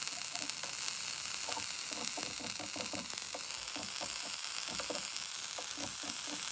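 Vape coils on a rebuildable atomizer being dry-fired until they glow: a steady sizzling hiss with rapid crackling and ticking as they burn off the blackened residue, pulsed and pinched with tweezers.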